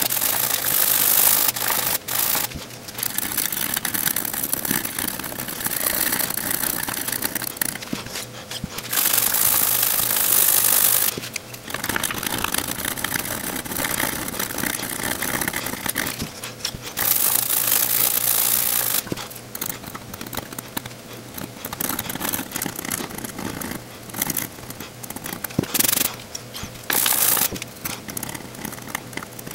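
Bursts of hissing, scratchy noise a few seconds long, starting and stopping sharply, from desoldering and cleaning work on the solder pads of a TV main board.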